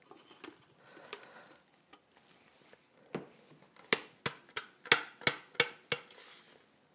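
Faint rustle of freshly milled spelt flour being tipped out, then about eight sharp knocks as the stainless-steel Thermomix mixing bowl is tapped to shake out the last of the flour.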